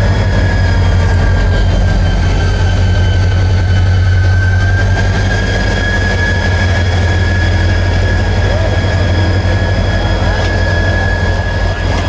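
EMD diesel-electric locomotive of the GMU-30 class idling: a loud, steady deep engine hum with a steady high-pitched whine over it.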